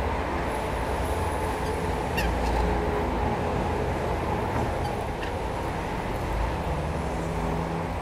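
Steady road traffic noise, a continuous rumble and hiss, with a few short, faint high chirps around two and five seconds in.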